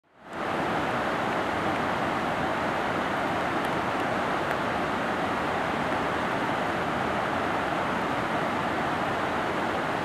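Fast Himalayan mountain river rushing over boulders through rapids: a steady, dense rush of white water that fades in at the very start.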